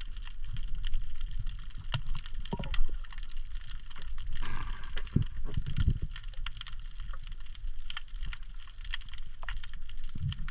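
Water sloshing and lapping, with many short sharp clicks and a few louder knocks scattered throughout over a steady low rumble.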